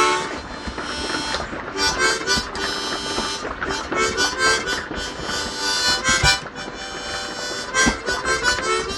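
Harmonica playing a tune: runs of quick, short notes alternating with longer held chords.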